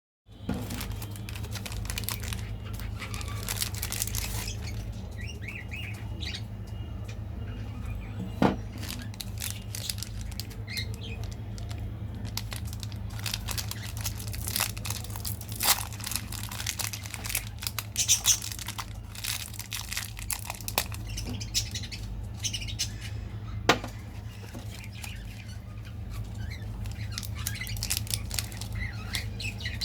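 Candy wrappers and plastic packaging crinkling and being torn open, with scattered sharp clicks and taps, over a steady low hum.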